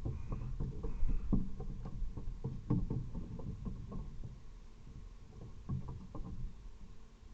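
Irregular short knocks and taps, clustered in a quick run a few seconds in and again briefly near the end: a raven's bill pecking at eggs.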